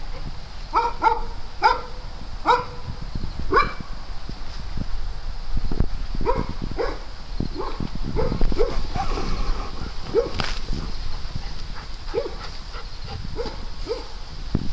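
Dogs barking in short, repeated barks while playing: a quick run of higher barks in the first few seconds, then lower barks spaced out through the rest.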